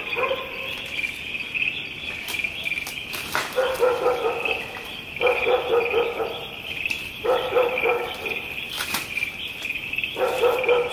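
Night insects, crickets, chirring steadily in a high, constant pulsing chorus. Over it, bouts of a lower rapid pulsing animal call come and go every couple of seconds from about three seconds in, with a few sharp cracks.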